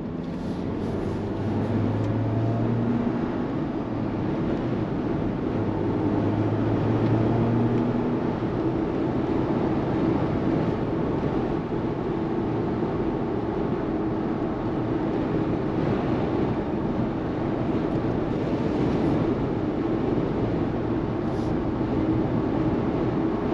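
2023 Jeep Wrangler Rubicon cruising at motorway speed, heard inside the cabin: steady road and wind noise over the hum of its 2.0-litre petrol engine, with a lower drone that swells twice in the first several seconds.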